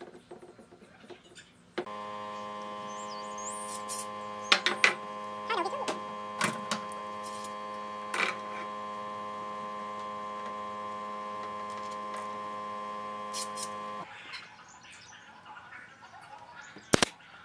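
A steady machine hum starts suddenly about two seconds in and cuts off about twelve seconds later, with a few sharp knocks of wood and metal bar clamps over it. Near the end comes a single sharp shot from a nail gun.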